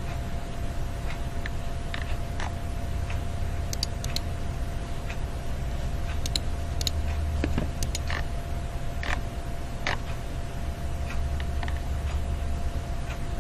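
Background noise of an amateur field recording: a steady low rumble with a faint steady whine, broken by irregular small clicks and creaks about once a second.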